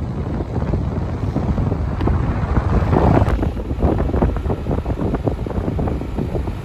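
Wind buffeting the microphone: a loud, uneven rumble that gusts stronger from about three seconds in.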